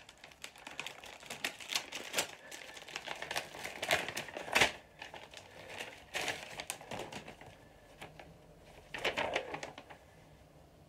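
Paper envelope and letter being handled: the letter pulled out and unfolded in irregular bursts of rustling and crinkling, loudest near the middle.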